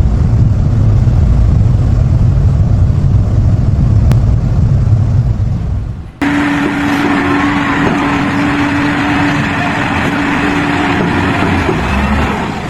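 Engine noise from vehicles or machinery: a loud, low engine rumble, then an abrupt cut about six seconds in to a different engine sound with a steady hum over it.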